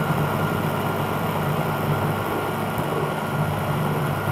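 Electric blender's chopper running steadily at full speed, its blade grinding chunks of peeled horseradish root into crumbs.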